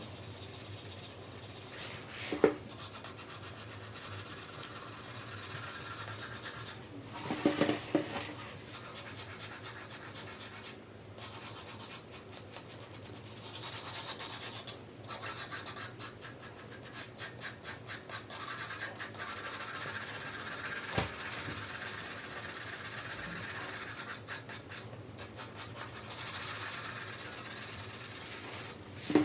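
4B graphite pencil shading on paper: continuous scratchy strokes, in places rapid back-and-forth hatching, broken by short pauses and a few light taps.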